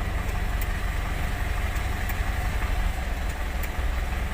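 Truck engine running steadily, a constant low rumble, with faint light ticks now and then.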